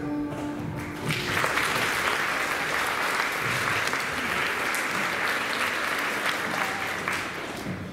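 The last held note of a song ends about a second in, then an audience claps steadily for several seconds, dying away near the end.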